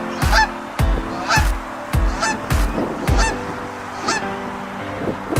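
Goose honking repeatedly, a short call roughly once or twice a second.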